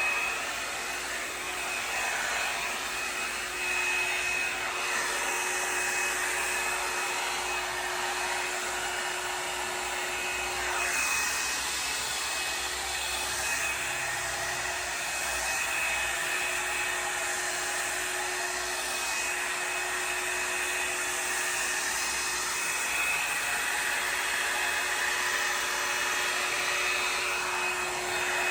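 Revlon One-Step Volumiser hot-air brush running steadily, blowing air with a steady motor whine and hum; the air hiss swells and fades every few seconds as it is worked through the hair.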